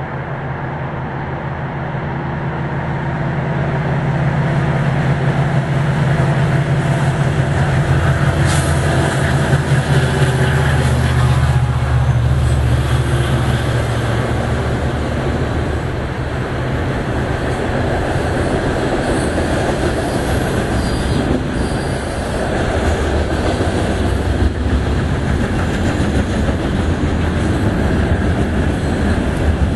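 HO-scale model freight train running past close by: a steady rolling rumble of metal wheels on the track that grows louder over the first few seconds.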